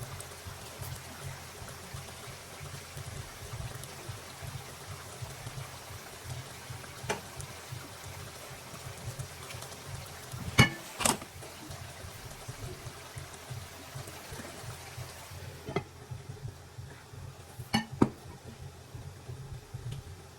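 Cooking sounds: a steady low background noise with several sharp clinks of utensils against cookware, the loudest two about halfway through and two more near the end.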